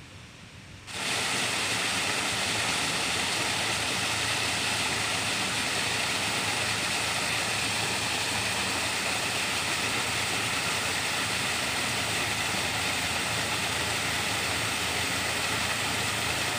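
Small waterfall pouring over boulders into a pond: a loud, steady rush of water. It starts abruptly about a second in, after a fainter trickle of a garden stream.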